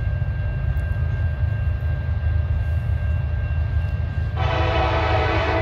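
Approaching freight locomotive's air horn, a CN SD70M-2, blowing one blast of about a second that starts about four seconds in, over a steady low rumble. A steady high ring from the grade-crossing bell runs beneath.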